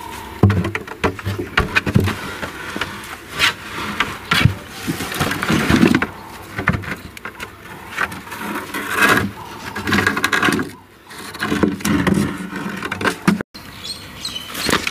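A cheetah rummaging through a wooden toy box and handling its toys, with irregular knocks, scrapes and rustling as toys bump against the wood.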